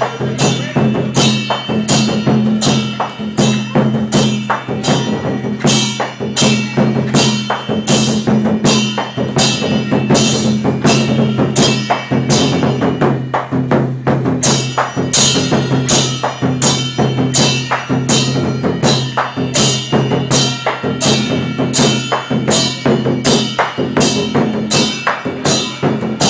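Chinese lion dance percussion: drum, cymbals and gong beating a steady, loud rhythm of about two strikes a second.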